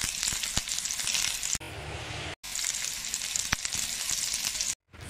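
Flux sizzling on a hot soldering iron as copper wire is soldered to a battery terminal: a steady hiss with small ticks, broken off briefly twice.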